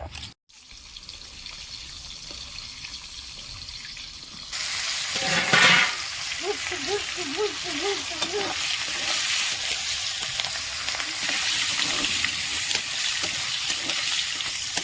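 Food frying in hot oil in a pan, a steady sizzle that gets louder about four and a half seconds in. A loud clatter comes just before six seconds.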